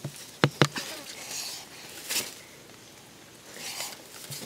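Wooden sticks knocking with two sharp clicks about half a second in, followed by brief crackling rustles of dry twigs and leaf litter as sticks are handled and set upright in the ground.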